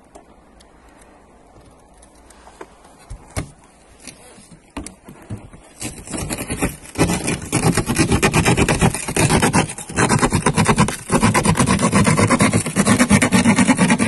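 Victorinox Rescue Tool's glass saw cutting a car's laminated windshield. A few light knocks come first, then from about six seconds in there is loud, fast back-and-forth sawing of the blade grating through the glass, with a couple of brief pauses.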